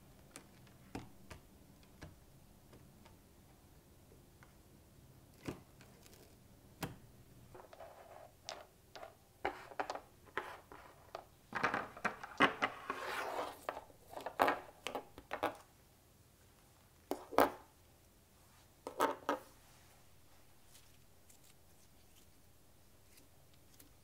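Small magnetic balls being handled and set onto a model, with scattered light clicks and a denser stretch of scratchy rubbing about halfway through.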